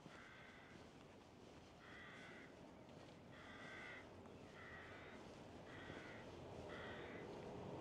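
A crow cawing faintly: six harsh calls in a row, each about half a second long, at an even pace.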